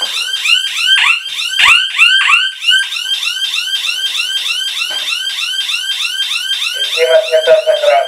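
Small wired electronic siren of a G10C GSM alarm kit sounding in alarm, wailing in rapid rising-and-falling sweeps at about four a second, set off by the motion sensor tripping while the system is armed. A lower steady tone joins near the end.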